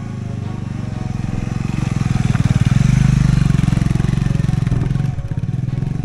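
Motorcycle riding up a dirt track past the camera. The engine grows louder as the bike approaches, is loudest about halfway through, then fades as it rides away.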